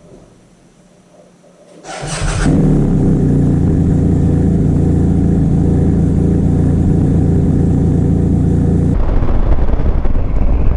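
BMW R1250GS boxer-twin motorcycle engine starting: a short burst of starter cranking about two seconds in, then the engine catches and idles steadily. The sound changes abruptly near the end.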